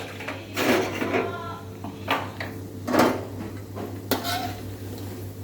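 Kitchen dishes and metal cutlery clattering: several separate sharp clinks with a short ring, about a second apart.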